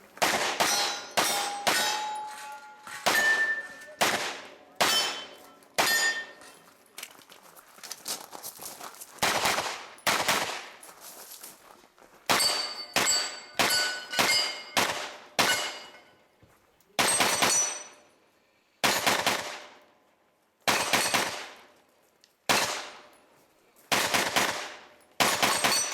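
Pistol-caliber carbine firing a string of about twenty shots, some in quick pairs and others a second or two apart. Several shots are followed by the ringing of struck steel targets.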